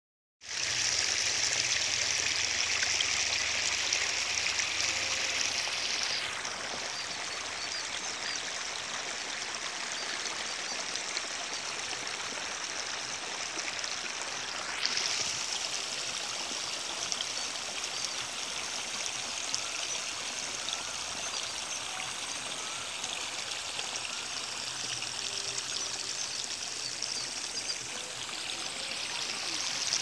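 Steady rushing of water flowing in a small stream or irrigation channel. A brighter, louder hiss sits over it for the first six seconds, drops away, and returns at about fifteen seconds.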